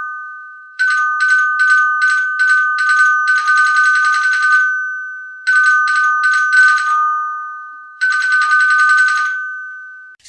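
A metal bell rung in repeated bursts: a fast rattling clapper over two steady ringing tones that linger and fade between bursts. The bursts vary, some short quick strikes and some about a second long.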